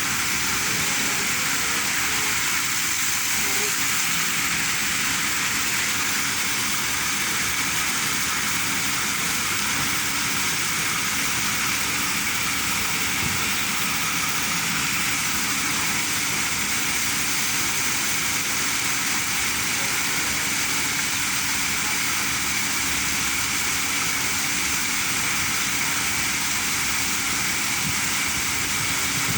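Water rushing steadily, an even unbroken hiss with a faint low hum underneath.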